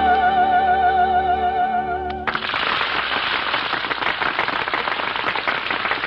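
A soprano holds a high final note with wide vibrato over a sustained orchestral chord, cutting off about two seconds in. A studio audience then breaks into steady applause.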